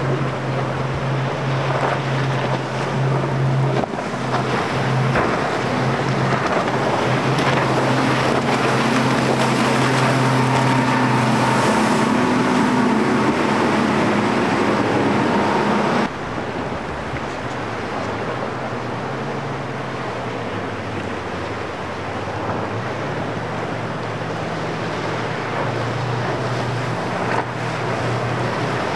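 Outboard engines of center-console boats running at speed, a steady hum over the splash of the hull through choppy water and wind on the microphone. The engine sound changes abruptly about 16 seconds in and carries on lower.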